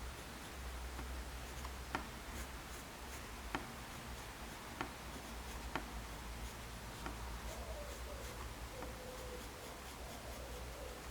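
Soft graphite pencil (a 5B Tombow MONO 100) scratching across printing paper in drawing strokes, with a few sharp light clicks about a second apart.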